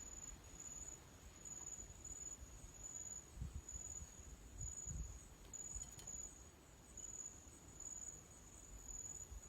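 A night insect trilling: one faint high-pitched tone, repeated in short pulses of about half a second, roughly one and a half per second. A faint low rumble lies underneath.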